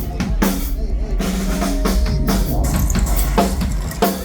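A live rock drum kit being played hard, with fast kick drum under snare hits and crashing cymbals, as it is checked through the PA.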